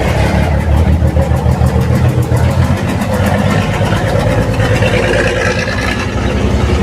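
FNM Alfa Romeo truck diesel engine running with a deep, even, pulsing rumble (a "roncão"). Its turbocharger is blowing a little, which the mechanic takes as a turbo not in good shape, though the engine itself runs well.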